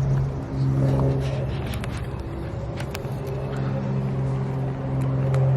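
A steady, even motor hum with a few light clicks and taps over it.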